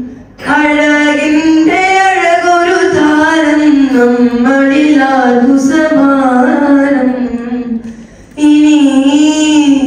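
A boy singing a Malayalam madh (Islamic praise song) unaccompanied into a microphone, in long wavering held notes. He breaks off for breath about half a second in and again around eight seconds.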